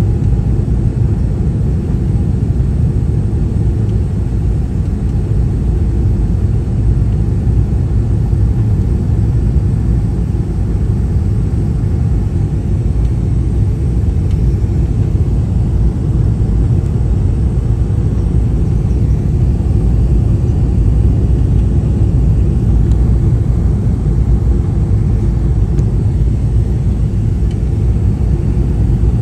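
Jet airliner cabin noise on the landing approach: the steady low rumble of the engines and rushing air, heard from inside the cabin.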